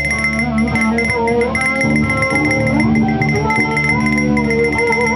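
Guitars playing an instrumental passage over a steady drone, with melody notes that slide up and down in pitch.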